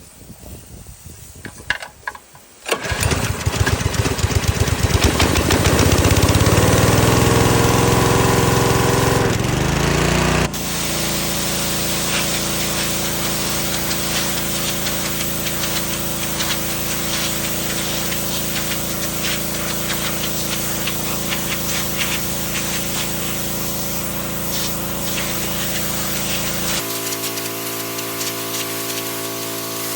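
Gasoline pressure washer's 6.5 hp 200 cc single-cylinder engine starting about three seconds in, speeding up, then running steadily. The sound changes abruptly about ten seconds in and again near the end.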